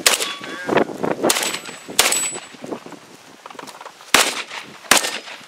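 About six shots from an AR-style semi-automatic competition rifle, fired at an uneven pace with a pause of about two seconds before the last two. Brief high rings follow a couple of the shots.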